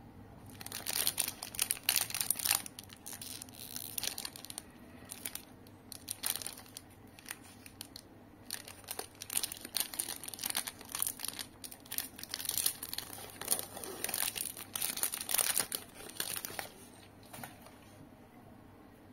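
Crinkling and tearing of a Cadbury 5 Star chocolate bar's shiny plastic wrapper as it is torn open and peeled off by hand. The sound comes in many irregular bursts of crackly rustling and dies away near the end once the bar is out.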